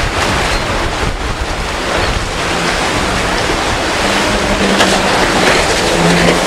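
Rough surf and strong wind noise on the microphone. About halfway through, a motorboat engine's steady hum joins in, its pitch dipping briefly near the end.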